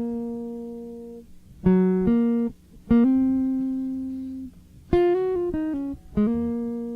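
Song intro on a solo guitar: picked single notes and small note clusters, each left to ring out and fade, with brief pauses between phrases.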